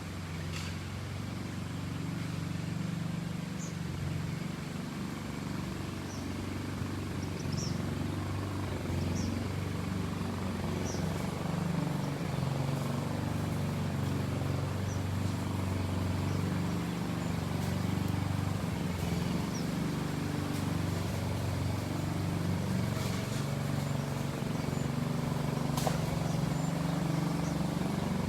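Airbus A330-300 airliner's Rolls-Royce Trent 700 turbofan engines heard from the ground as it passes overhead: a steady low rumble that slowly grows louder.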